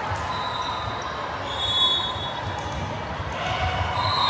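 Indoor volleyball play in a gym: dull thuds of the ball and brief high squeaks over a hall of crowd voices that grows louder near the end.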